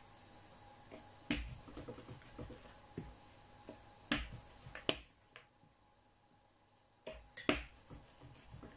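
Rolling pin rolling out dough on a table, with a few sharp clicks and knocks: one about a second in, two around four to five seconds in, and a quick pair near seven and a half seconds, with a quiet stretch between.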